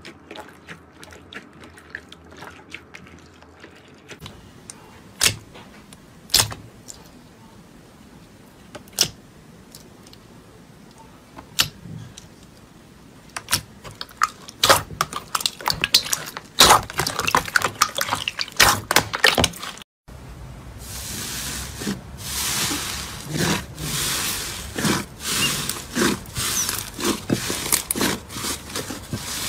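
Slime being squished and stretched by hand. At first there are scattered wet pops and clicks, which grow denser. After a sudden cut about two-thirds of the way through comes a continuous run of crackling, squelching clicks.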